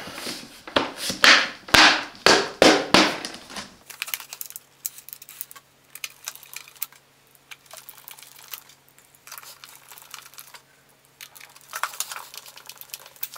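Plastic side cover of an inverter generator being fitted back onto its frame: a quick run of sharp clicks and knocks for the first few seconds, then quieter ticks of a hand screwdriver driving the cover screws, with a few more clicks near the end.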